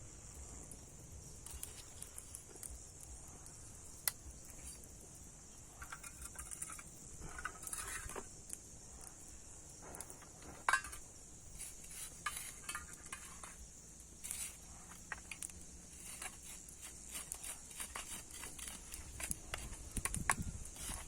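Steady high-pitched chorus of insects, with scattered light clicks and rustles.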